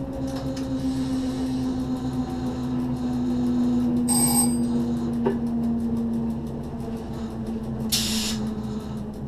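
Cab interior of a Z 6400 electric multiple unit under way: a steady hum from the running train with a tone that slowly falls in pitch. A short electronic beep sounds about four seconds in, and a brief hiss comes near the end.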